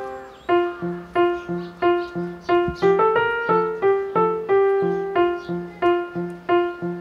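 Background music: a keyboard tune of evenly spaced, decaying notes, about three a second, over a lower alternating bass note. It starts about half a second in, as the previous phrase dies away.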